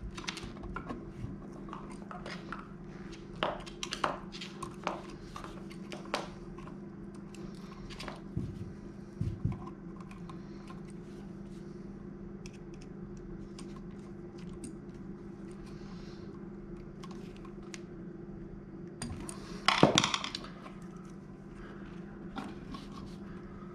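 Small metallic clicks and scrapes as a screwdriver and copper wire work the terminal screw of a wall outlet, with a louder rattle of handling about twenty seconds in. A steady low hum runs underneath.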